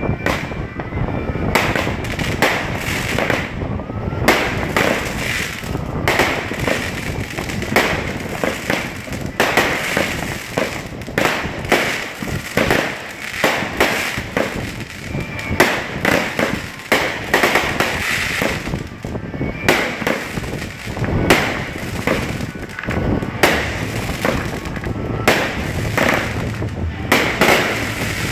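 Aerial fireworks being launched from the ground and bursting overhead: a long run of sharp bangs in quick succession, starting about a second and a half in.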